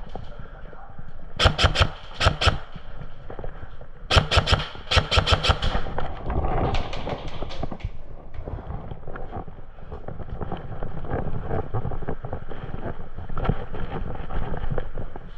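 Airsoft guns firing in short bursts of rapid shots, several clusters in the first six seconds, over a steady background of movement and outdoor noise.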